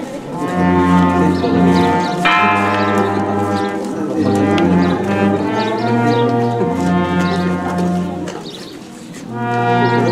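Brass band playing a tune, trumpets carrying the melody over a sousaphone bass line in long held notes. The music dips briefly near the end and swells back.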